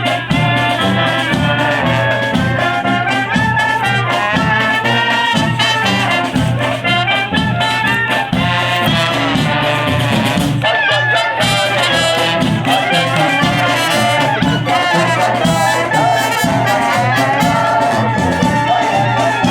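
Klezmer brass band playing a lively tune, trumpet and trombone carrying the melody over a steady beat.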